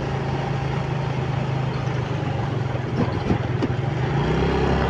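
Motorcycle engine running at steady cruising speed, heard from the rider's seat with wind and tyre noise. It grows slightly louder and deeper about four seconds in.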